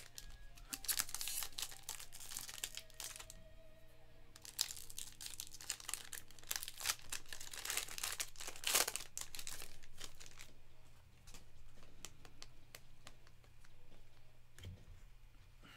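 Crinkling and tearing of a trading-card pack's plastic wrapper as a pack is torn open and handled, in irregular rustling spurts, busiest about a second in and again through the middle.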